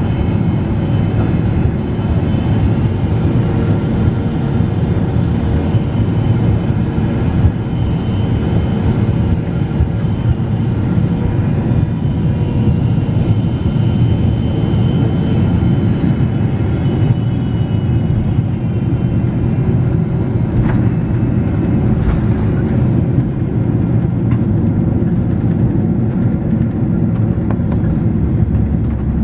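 Steady cabin roar of a Boeing 777-300ER in flight or on the runway: airflow and engine noise heard from inside the cabin, with faint steady tones that fade out about halfway through. Two brief knocks come about 21 and 22 seconds in.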